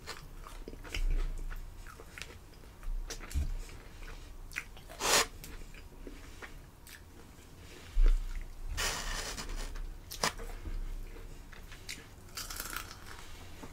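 Close-miked eating sounds: chicken wings pulled apart by hand and chewed, with scattered crunches and small wet clicks. Louder bursts come about five seconds in and again around nine seconds in.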